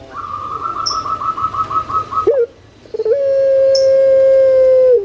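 A puter pelung (Barbary dove, Streptopelia risoria) cooing: a rolling, pulsing high note of about six beats a second for some two seconds, a short break, then one long steady lower note held for almost two seconds.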